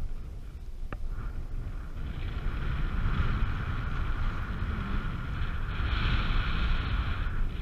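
Wind rushing over the microphone in paraglider flight, a fluttering low rumble throughout. A high, steady tone rides over it, growing stronger about two seconds in, with one brief click about a second in.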